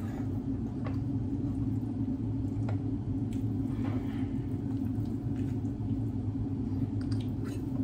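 Steady low machine hum, unchanging throughout, with a few faint clicks and squelches from handling a raw, marinated whole chicken.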